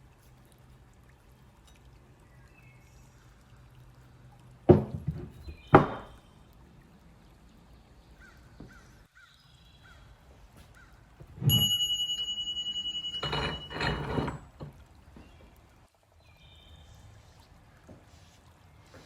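Hard objects knocking twice, sharp and loud, then a strike that rings on with a clear metallic tone for about two seconds, followed by a short scraping clatter.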